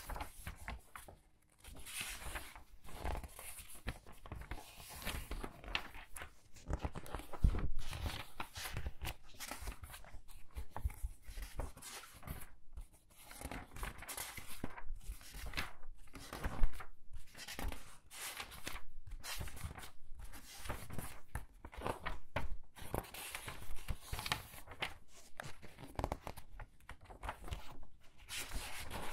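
Paper pages of a book being turned quickly one after another: a run of short papery swishes and flaps, some louder than others.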